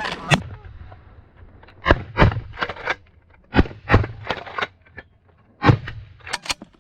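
A string of sharp bangs or impacts in quick clusters of two to four, the clusters about a second apart.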